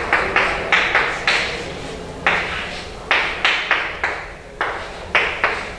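Chalk writing on a chalkboard: a quick, irregular series of sharp taps and short scrapes as characters are written, with a brief pause about a second and a half in.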